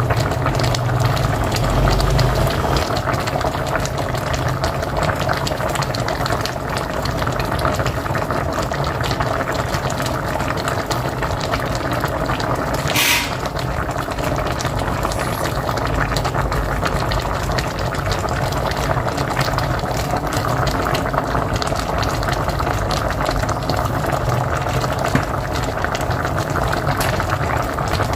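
Pot of mocotó (cow's feet) boiling steadily on a wood-fired stove: continuous dense bubbling, with one brief sharper noise about halfway through.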